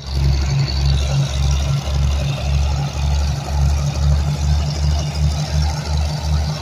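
Diesel locomotive engine running close by with a deep, rhythmic low throb, about two to three pulses a second, quickening slightly toward the end.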